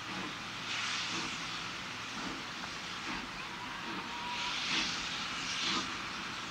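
Baldwin 2-6-2 steam locomotive working steam, with a steady rumble of exhaust chuffs and louder bursts of steam hiss about a second in and twice more in the second half.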